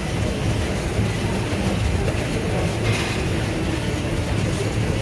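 Treadmill running at a walking pace under a walker's steps: a steady low mechanical rumble of the motor and belt.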